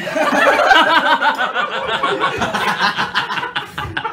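Several men laughing and chuckling together, loud and overlapping.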